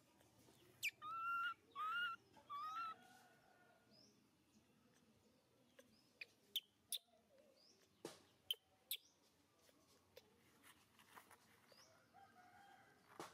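Baby macaque giving three short, high, rising calls in quick succession, an infant calling for its mother, followed a few seconds later by a handful of faint sharp ticks.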